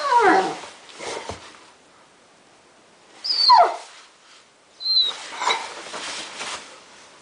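Dog giving high yelping whines that fall steeply in pitch during rough play: one at the start, the loudest about three and a half seconds in, and a short high one near five seconds, with rustling noise after it.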